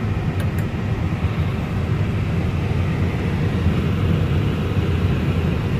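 Steady air-conditioning and equipment noise inside a parked Airbus A320neo cockpit, an even rumble heavy in the low end, with a couple of faint clicks about half a second in.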